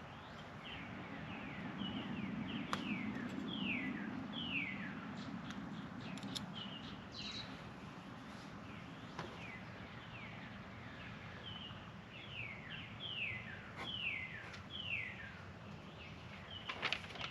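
A bird calling repeatedly: a long series of short whistled notes, each sliding downward, one or two a second. A low hum sits under the first few seconds, and a few faint clicks are scattered through.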